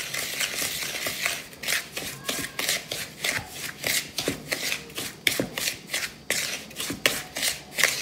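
Wooden spoon stirring a gritty sugar, cocoa and olive oil scrub mixture in a bowl, a steady run of short scraping strokes, about three a second.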